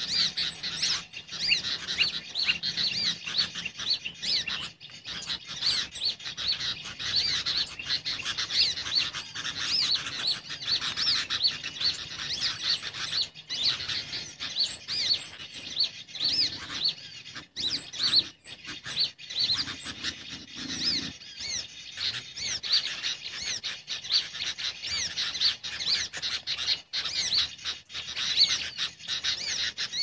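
Bird-trapping lure recording playing fast, high-pitched chirping bird calls, several short notes and quick up-and-down whistles every second without pause, meant to draw sunbirds in to the lime sticks.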